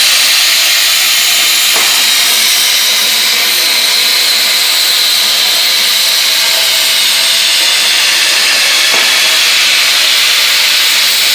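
Plasma torch of an IWM 5-axis CNC tube-cutting machine cutting square steel tube: a loud, steady hiss of the plasma arc and gas jet. Two faint ticks come through, about two seconds in and again later.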